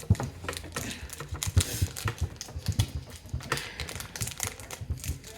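Pokémon trading cards being handled and sorted into order: a string of irregular light taps and clicks.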